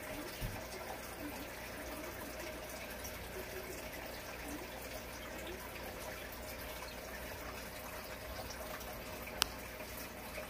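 Aquarium aeration running: a steady bubbling and trickle of water over a faint steady hum, with a single sharp click about nine seconds in.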